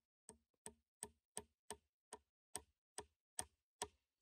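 About ten short, sharp knocks in a steady, even rhythm of roughly two and a half a second, like repeated blows or taps on wood.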